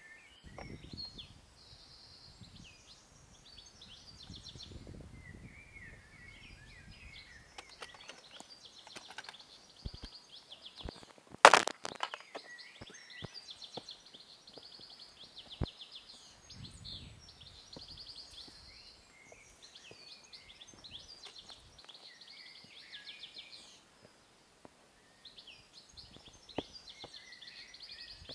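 Songbirds singing in the surrounding forest, the same short phrase repeated every couple of seconds, a warble ending in a fast buzzy trill. Scattered clicks and knocks of the hiker climbing over rock, with one sharp loud knock a little past the middle.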